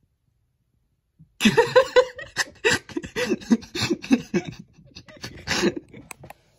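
After about a second of silence, someone laughs in a quick run of high-pitched ha-ha sounds lasting a few seconds, fading near the end.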